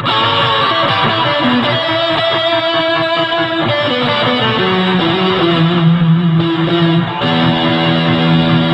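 Electric guitar played through a custom effects pedal that combines a Big Muff–style fuzz with two modulated experimental reverbs. It plays held, overtone-rich notes that change pitch several times, the last one ringing on toward the end.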